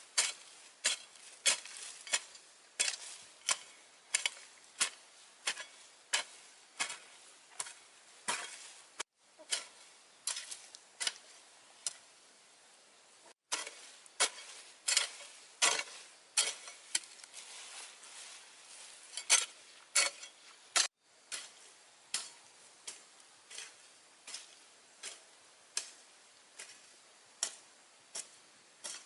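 A steady series of sharp knocks, about one and a half a second, like repeated chopping or striking, broken by three brief dropouts.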